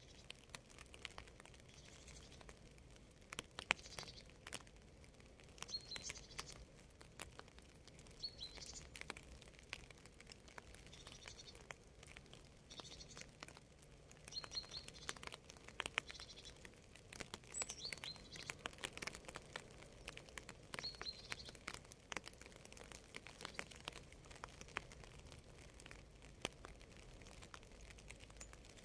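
Quiet rain: scattered raindrops pattering and dripping in sharp separate ticks. A bird chirps in short high calls about every two seconds over them.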